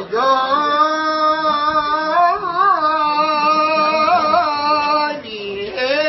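A man singing in Arabic, holding one long note for about five seconds with a few small ornamental wavers, then starting a new sung phrase near the end.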